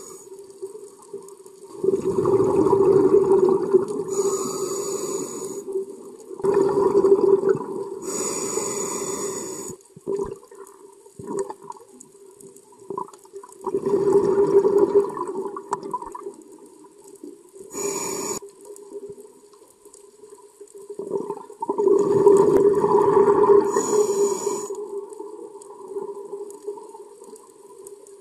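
Scuba diver breathing through a regulator underwater: four loud bursts of bubbling exhaust bubbles, a few seconds long and coming every six to eight seconds, some with a short hiss. A faint steady hum runs underneath.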